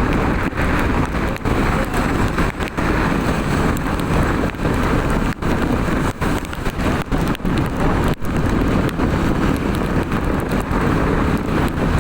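Loud rushing noise of wind buffeting the microphone in the rain, with no horn notes, broken by many brief cut-outs.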